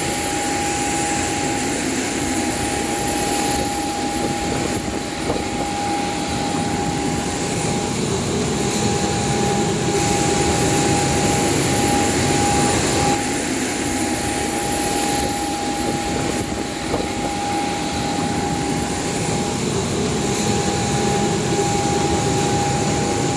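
Jet airliner noise on the apron: a continuous rush with a steady high whine held throughout.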